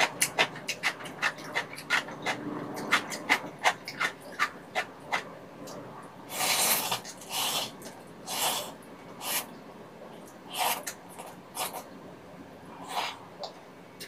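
Close-miked eating sounds of rabokki: quick wet chewing clicks for the first few seconds, then a long slurp of ramen noodles about six seconds in, followed by several shorter slurps and chews.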